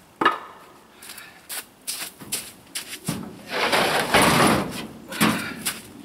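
Concrete cinder blocks being handled: a sharp knock as a block is set down on a stack, footsteps, more knocks, and a rough scrape lasting about a second near the middle as a block is dragged or slid.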